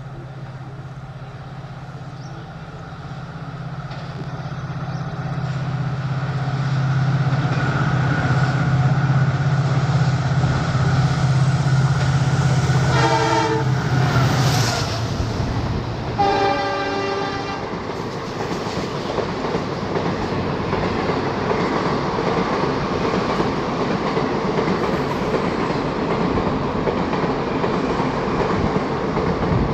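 EMD WDP-4D diesel locomotive running at speed with a steady low drone that grows louder as it approaches. It sounds two horn blasts about halfway through as it passes. The express coaches behind it then rush past, with clickety-clack over the rail joints.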